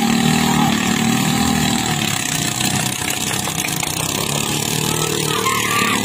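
Engines of several small outrigger racing boats running hard as the boats speed across the water, a loud, steady drone.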